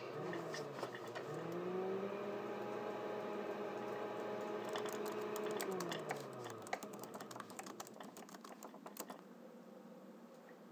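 Electric blender motor spinning up, running steadily for about four seconds, then winding down. Laptop keyboard typing clicks start shortly before the motor stops and carry on after it.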